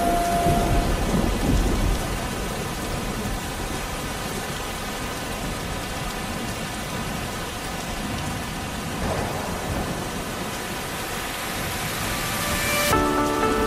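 Steady rain-like hiss with a low rumble of thunder in the first two seconds; music begins near the end.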